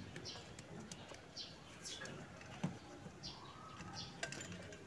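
Small bird chirping in a series of short, falling, high-pitched chirps, with faint clicks from hands handling wires and electrical tape.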